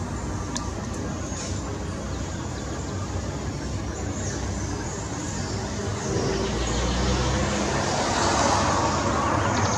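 Steady traffic rumble that swells in the second half, with a couple of single sharp taps early and a quick run of knocks near the end: a woodpecker pecking at wood.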